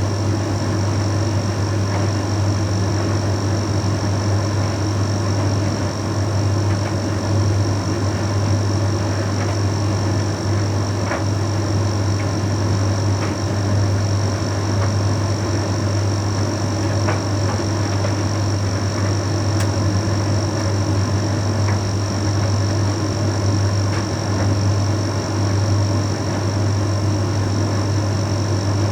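Bosch Series 6 heat pump tumble dryer running steadily mid-cycle, with a strong low hum and a thin high whine over the drum's running noise. Occasional faint ticks sound through it.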